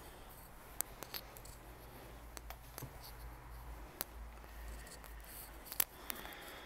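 Scattered sharp clicks and soft taps, irregularly spaced, from a person walking in sneakers along a wood-floored hallway, over a low steady hum.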